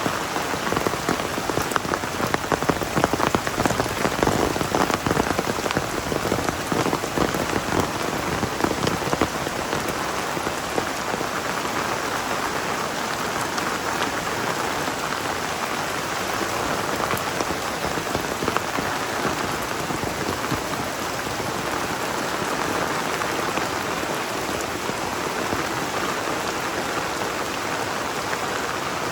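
Heavy rain falling and splashing on surfaces, a dense steady patter of drops, a little louder and busier in the first ten seconds or so.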